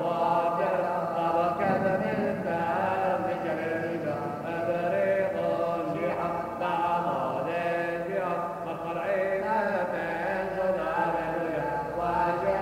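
Syriac Orthodox liturgical chant, sung as one unbroken melodic line.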